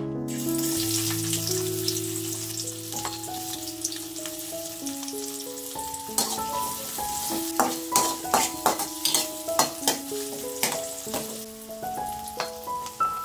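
Chopped shallots and onion sizzling as they hit hot oil in an aluminium wok. About halfway through, a metal spatula starts clicking and scraping against the wok as they are stirred.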